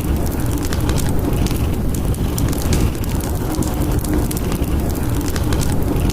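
Fireplace fire crackling with scattered sharp pops over a steady low rumble of storm wind.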